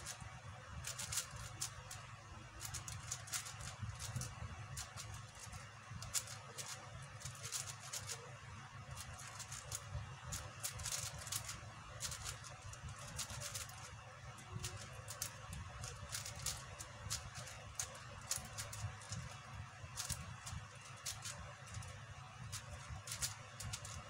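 QiYi 5x5 speedcube being turned fast: a dense, continuous run of quick plastic clicks and clacks as its layers are snapped round during a speedsolve.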